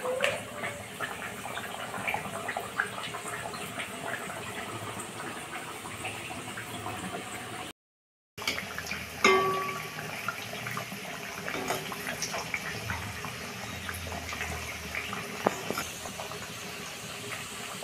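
Malpua batter deep-frying in hot oil in a cast-iron kadhai: steady sizzling and crackling. It cuts out for a moment about eight seconds in, and a light metal clink from the steel skimmer against the pan follows just after.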